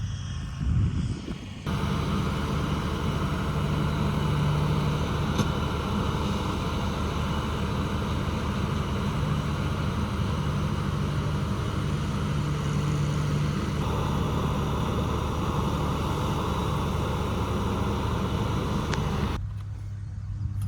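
A motor vehicle's engine running steadily under way, with a low hum and wide noise. It starts abruptly a couple of seconds in and drops away abruptly near the end.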